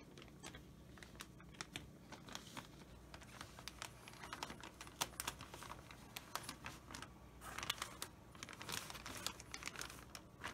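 Plastic zip-top bag crinkling and rustling as a bagged potted plant is handled and set down, with many light clicks and taps scattered throughout. The crinkling is heaviest late on.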